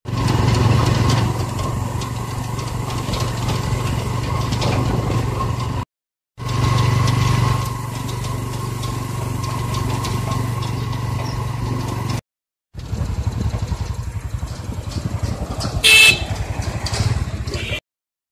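Motorcycle engine running steadily under way, with road and wind noise. There is a short horn beep about 16 seconds in. The sound cuts out abruptly for a moment three times.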